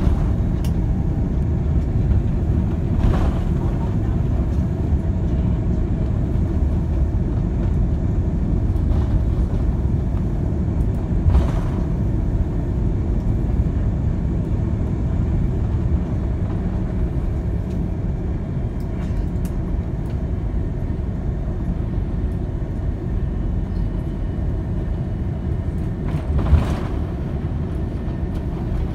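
Cabin noise of an Airbus A330-300 rolling on the ground: a steady low rumble of engines and wheels that eases slightly over time. Three brief thumps come about 3, 11 and 26 seconds in, the last the loudest.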